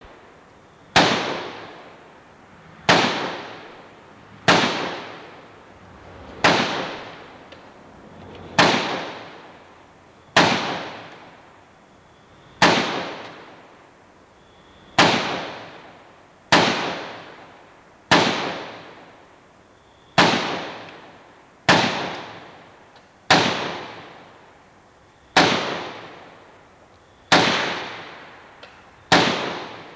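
AK-47 rifle firing single shots at a slow, steady pace, sixteen shots about two seconds apart, each sharp crack followed by a long echo dying away.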